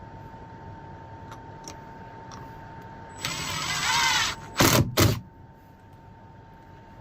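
Cordless drill running for about a second, its motor pitch dipping under load as it drives a screw into the cabinet, followed by two loud knocks.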